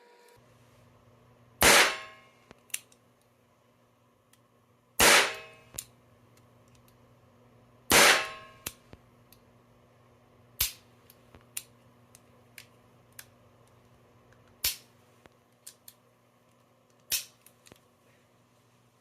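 Three shots from an old .22LR revolver, a few seconds apart, each with a short ringing tail, followed by a series of quieter sharp clicks.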